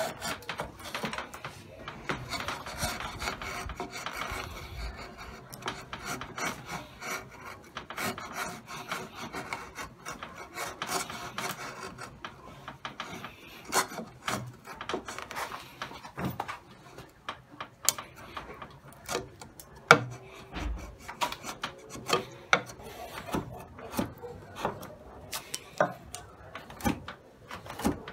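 Steel bench chisel paring pine by hand: the edge scrapes through the wood, with sharp clicks and snaps as curls come away. The strokes are a more continuous scraping in the first half and turn into short, separate snaps later.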